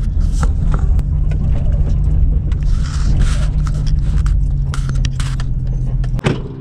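A vehicle engine running steadily, with scattered knocks and rattles, until it cuts off sharply near the end.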